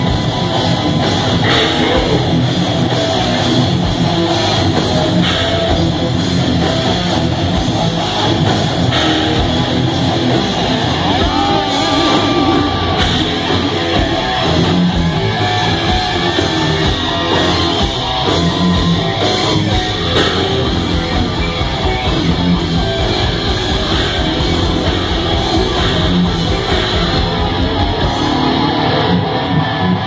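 Heavy metal band playing live and loud: electric guitars and a drum kit going without a break.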